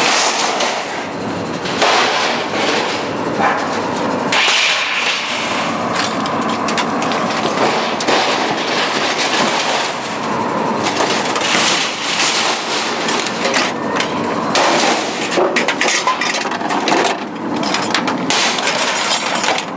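Scrap metal clattering and banging: a dense, irregular run of knocks and crashes.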